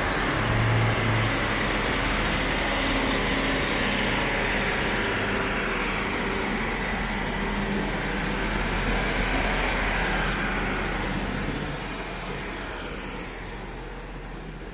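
Northern diesel multiple unit, a Class 150 Sprinter coupled to a Class 156, pulling out of the platform under power with a steady diesel engine drone. It fades over the last few seconds as the train draws away.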